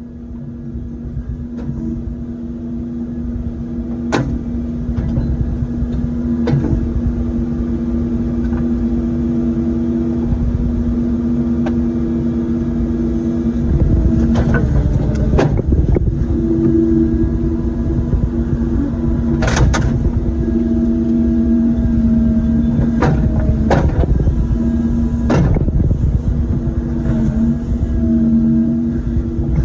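Cat 308 mini excavator running with a steady engine and hydraulic drone, fading up over the first few seconds. Sharp knocks and clanks come now and then, most of them in the second half, as the bucket digs and pries at old wooden seawall boards and earth.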